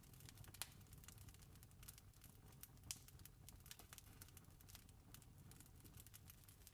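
Wood fire crackling faintly with irregular sharp pops, two louder ones about half a second and three seconds in, over a steady low rumble.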